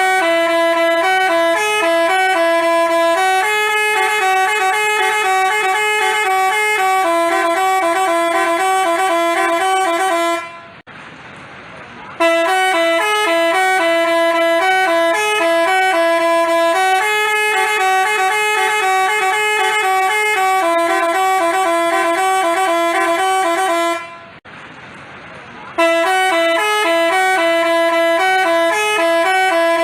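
Basuri telolet horn playing its multi-note tune, a quick melody of stepping horn tones, played through three times with a short break of a second or two between passes.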